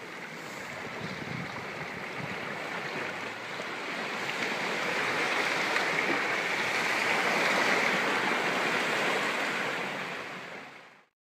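Small waves washing and splashing against rocks and kelp at the shoreline, a steady hiss that swells in the middle and fades out near the end.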